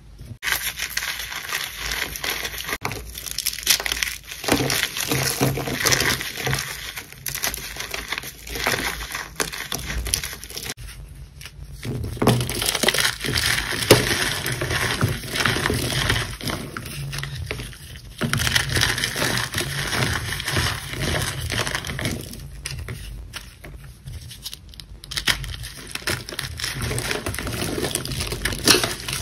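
Blocks of gym chalk being crushed and crumbled by hand: a dense, crunchy crackle of chalk breaking into chunks and powder, coming in bursts with short pauses.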